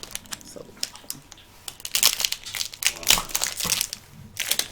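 Plastic candy-bar wrapper crinkling as it is handled, scattered crackles at first, then a dense flurry of crackling for about two and a half seconds that stops shortly before the end.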